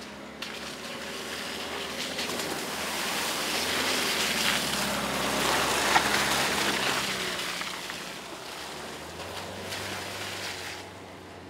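Opel Combo Cargo 4x4 van driving past on a muddy track: its 130 hp diesel engine running under a steady hum, and its tyres churning and splashing through mud and puddles. The sound swells to a peak about midway, then fades as the van moves away.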